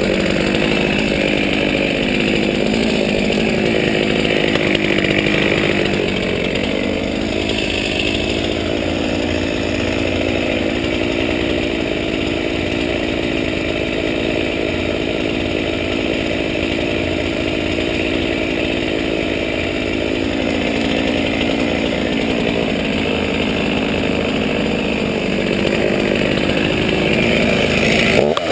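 Two-stroke chainsaw running steadily.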